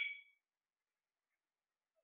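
The tail of an Alexandrine parakeet's high-pitched screeching call, fading out within the first half second, then silence.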